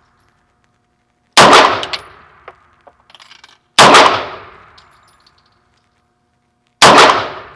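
Three 9mm shots from a Star BM pistol, about 1.4, 3.8 and 6.8 seconds in, each with a short ringing echo off the range walls, and faint clinks after the first shot. The last round does not cycle the slide all the way.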